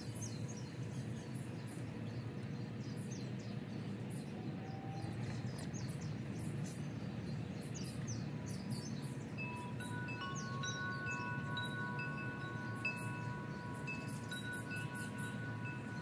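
Wind chime ringing: a few long tones come in about ten seconds in and hold, with short higher notes pinging over them. Faint high chirps run throughout over a low steady outdoor rumble.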